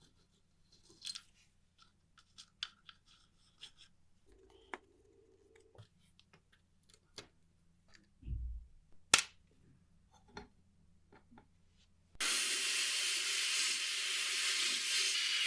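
Scattered small clicks and taps of work on small parts, then a loud, steady hiss of air or spray that starts abruptly about twelve seconds in.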